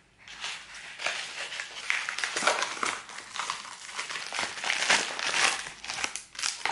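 A yellow padded paper mailer and the plastic-wrapped box inside it crinkling and rustling in irregular bursts as they are handled and the box is pulled out.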